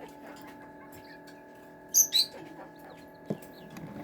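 A chick peeping: a quick pair of high peeps about two seconds in, over a steady hum, with a short click near the end.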